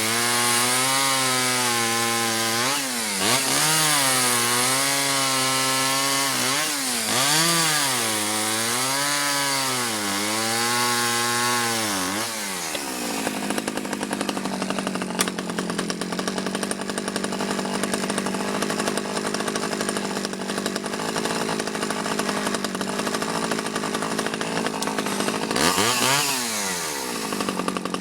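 Stihl 009 two-stroke chainsaw revving, its pitch rising and falling repeatedly for about twelve seconds, then dropping to a steady idle with one quick rev up and back down near the end. The owner reckons it is running a bit lean.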